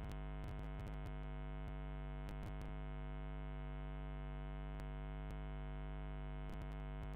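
Steady electrical mains hum with many overtones on the recording, with scattered short clicks of a computer mouse and its scroll wheel, in a few clusters: near the start, about two and a half seconds in, and near the end.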